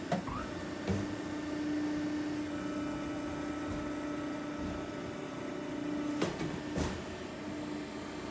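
Twin-ram hydraulic metal baler running: a steady hum from its hydraulic power unit, with four sharp metallic clanks, two near the start and two about six seconds in.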